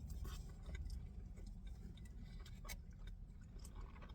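A person chewing a mouthful of food, with faint scattered mouth clicks and smacks over a low steady hum.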